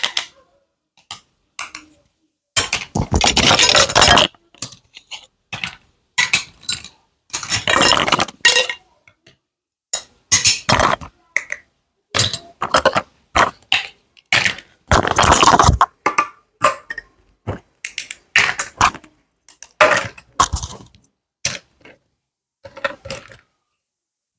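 Small plastic toy playset pieces being unpacked and handled. Short clinks and clatters come one after another, with a few longer stretches of rattling handling noise, split by abrupt silent gaps.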